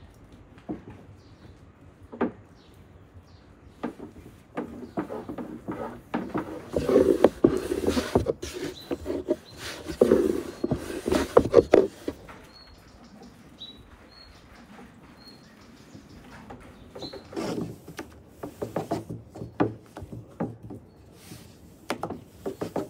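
Long thin wooden rolling pin rolling dough out on a floured wooden board: wood rubbing and knocking on wood in two busy bouts of rolling. A few faint bird chirps in the quieter stretch between them.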